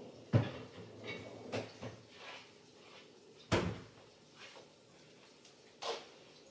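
Kitchen cabinet doors knocking as they are opened and shut: several short sharp knocks, the loudest about three and a half seconds in.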